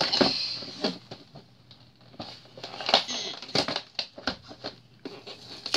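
A folded paper checklist rustling and crinkling as it is handled and unfolded, in short irregular bursts with small clicks.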